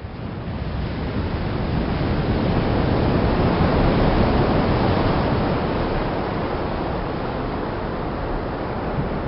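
Waterfall: a steady rush of falling water that swells over the first two seconds and then holds even, heaviest in the low rumble.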